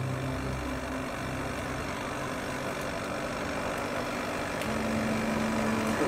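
Steady rushing roar of a charcoal forge fire burning hard.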